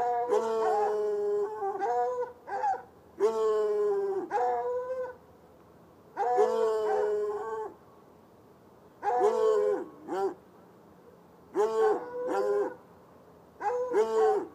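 Hounds baying: three long, drawn-out howling bays, then shorter barks in quick pairs and threes with short quiet gaps between.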